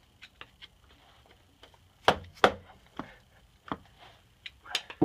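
Sharp knocks of a tool struck against the rear hub's driving member on a Land Rover Series IIA, forcing the tight flange off the hub. There are a few faint clicks first, then about six irregular knocks starting about two seconds in.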